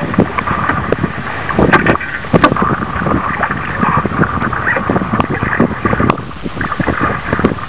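Wind buffeting the microphone over lapping lake water, with many small irregular knocks and clicks.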